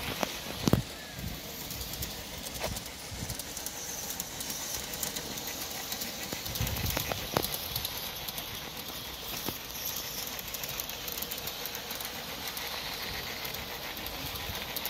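Garden-scale model diesel locomotive with two coaches running along its outdoor track: the steady rolling of small wheels on the rails, with a few scattered clicks and knocks.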